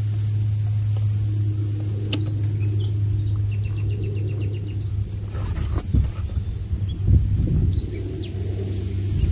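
Steady low rumble with uneven low thumps and gusts in the second half. Small birds chirp faintly throughout, with a short rapid trill about three and a half seconds in.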